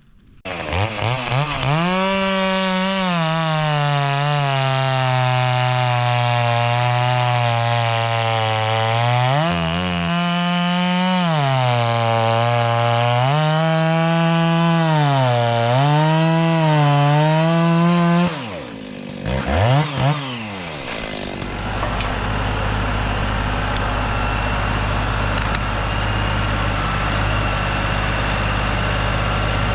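Stihl chainsaw running at high revs, its pitch sagging and recovering again and again as it bogs under load in the cut, then winding down and stopping about two thirds of the way through. After a short gap a tractor's diesel engine runs steadily at a low, even pitch.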